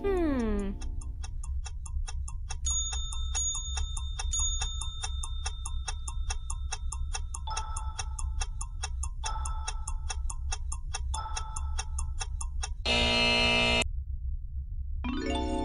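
Quiz countdown sound effect: a cartoon falling-pitch glide, then a clock ticking at a steady even rhythm over a low music bed. A loud buzzer sounds for about a second, about 13 seconds in, marking time up before the music resumes.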